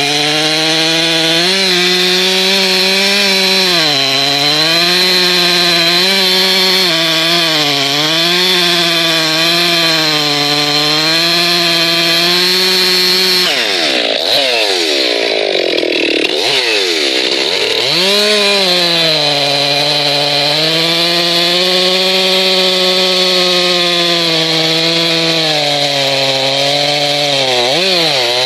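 Ported Stihl MS441 C-M two-stroke chainsaw with a square-ground chain cutting through a large log at full throttle, its pitch dipping again and again as the chain bites and loads the engine, then recovering. About halfway through, the pitch sweeps down and up unevenly for a few seconds before the saw settles back into a steady cut. The uploader finds the square-ground chain a bit grabby.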